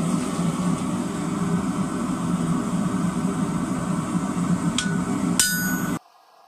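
A steady machine drone, then, near the end, two hammer blows on a hand chisel held on a red-hot square steel bar on the anvil. The first is light and the second loud and ringing. The chisel is denting a groove down the middle of the bar without cutting through, and the drone cuts off suddenly just after the second blow.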